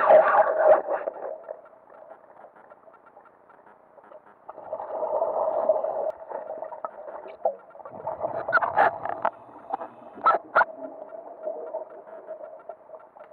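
Muffled underwater sound picked up by a camera held just above a lake bed: a steady hum, a rushing burst about five seconds in, and a quick run of sharp clicks and knocks a little later.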